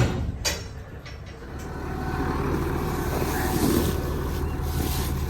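A sharp bang at the start and a smaller knock half a second later, then a vehicle engine running steadily, growing louder about two seconds in.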